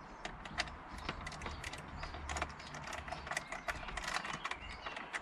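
Hand screwdriver tightening screws into a plastic centre-console trim piece, giving a run of quick, irregular small clicks.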